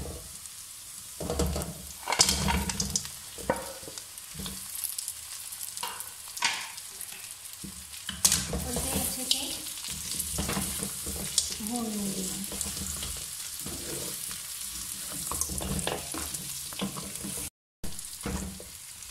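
Pieces of boiled mutton sizzling in hot oil with browned onions in a metal karahi. A slotted wooden spatula stirs them, scraping and knocking against the pan again and again.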